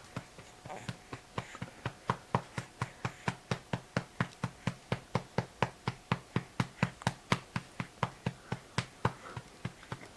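A hand patting a two-month-old baby's back to bring up a burp: steady soft taps, about four a second. The taps ring out loud and hollow, though the patting is gentle.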